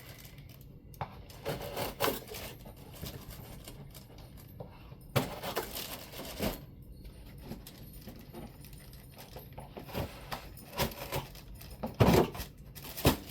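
Packaging being handled as a box is unpacked: irregular rustles, scrapes and knocks, with louder knocks about five seconds and about twelve seconds in.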